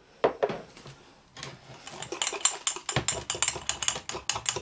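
Rapid, irregular clinking and tapping of a glass tumbler against a spoon and the worktop as a dry bait mix is worked in it, with a single knock just after the start.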